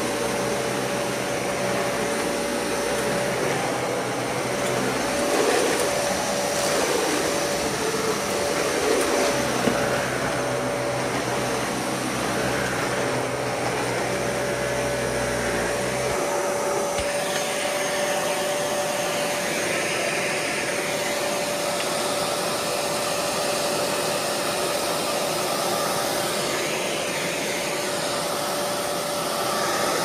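Dyson Cinetic Big Ball upright vacuum cleaner running steadily while vacuuming a rug, with a steady whine over the rush of air. A lower hum underneath drops away about halfway through.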